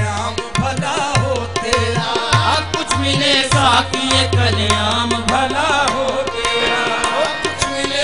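Qawwali music: tabla playing with a deep drum bass under a winding, ornamented melody line.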